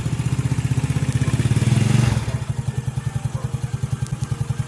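Yamaha Mio scooter's single-cylinder four-stroke engine running after an oil and gear-oil change: it is revved lightly for the first two seconds, then drops back to a steady idle.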